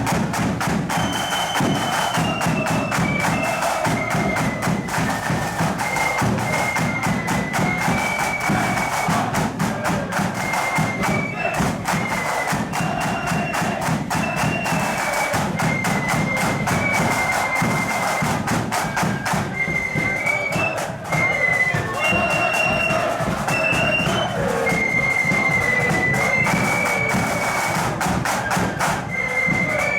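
Marching flute band playing a tune on parade: a high flute melody over fast, continuous snare drumming and bass drum beats.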